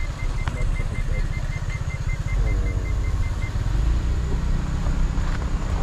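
Car engine and tyre rumble heard from inside the cabin as the car drives slowly along a rough dirt lane. A motor scooter passes about two seconds in.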